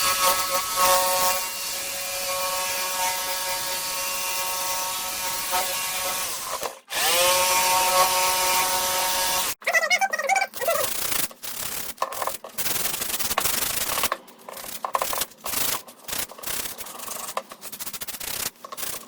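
Electric jigsaw running and cutting a 1/4-inch MDF board, a steady motor whine; it stops briefly about seven seconds in and spins back up for a couple more seconds. After that, sandpaper is rubbed by hand over the cut edge in short, irregular strokes.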